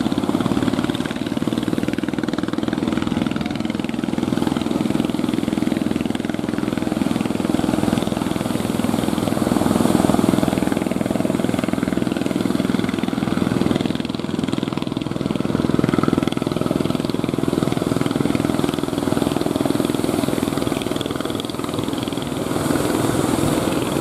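Engines of motorised outrigger fishing boats running steadily as the boats push through breaking surf, with the wash of the waves beneath.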